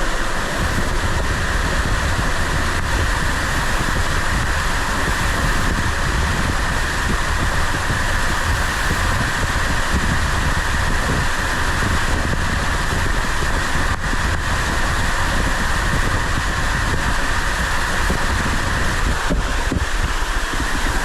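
Steady rushing of water falling at a waterfall, unbroken throughout, with a low wind rumble on the microphone.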